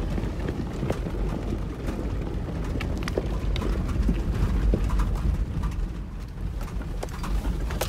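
Off-road SUV driving slowly over a rough gravel track, heard from inside the cab: a steady low rumble with frequent small knocks and clicks.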